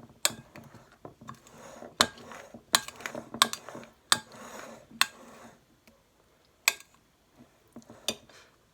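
Kitchen utensil scraping around a mixing bowl of whipped cream-and-caramel mixture and knocking against the bowl, with a string of sharp clinks and taps; the scraping stops a little past halfway and a few scattered knocks follow.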